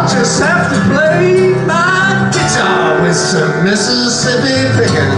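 A live song: a man singing with acoustic guitar strumming and piano accompaniment, his voice sliding up in pitch several times.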